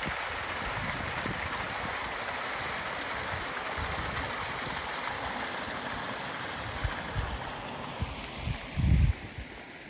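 Steady rush of running water, thinning out near the end, with a few low thumps in the last few seconds, the loudest about nine seconds in.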